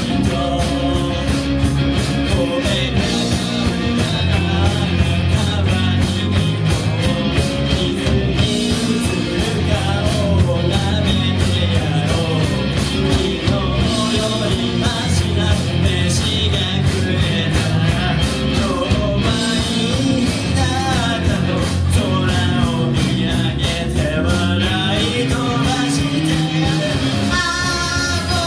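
Live rock band playing a song: electric guitars, bass and drums with a lead voice singing over them.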